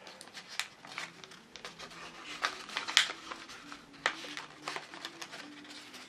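A folded sheet of printer paper crinkling and crackling in the hands as its creased layers are worked apart, in a run of irregular crackles with one sharp crackle about halfway through.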